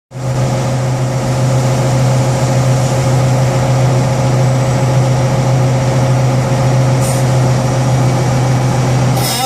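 Caterpillar 836G's diesel engine running with a steady, deep hum. At the very end, a high squeal from the steering hydraulics begins to rise over it. This is the left-turn-only squeal that the owner traces to the steering crossover valve circuit.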